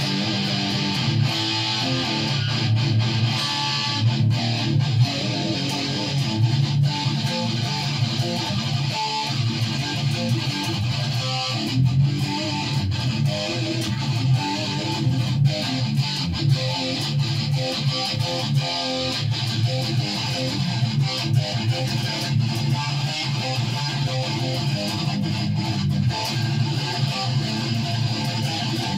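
Guitar music with strummed chords and a strong low end.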